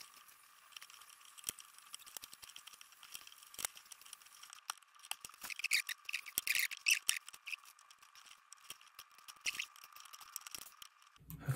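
Light metallic clicks and scrapes of a flat-blade screwdriver and needle-nose pliers prying spot-welded nickel strips off the ends of 18650 cells in a battery pack, with a busier run of scraping around the middle.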